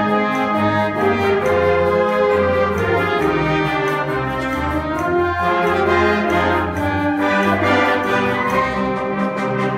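Concert band of woodwinds and brass playing held chords over a steady bass line, the harmony shifting every second or so.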